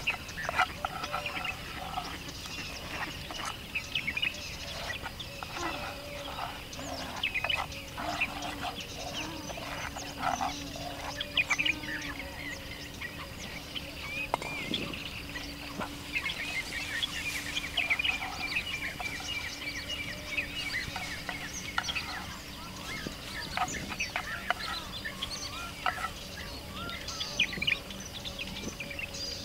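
Birds, chickens among them, calling and chirping repeatedly, with scattered short clicks and knocks.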